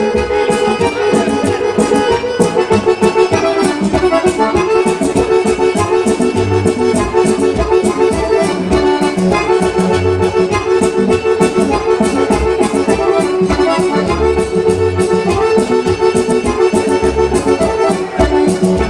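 Accordion-led Serbian folk dance music with a quick steady beat and a bass line.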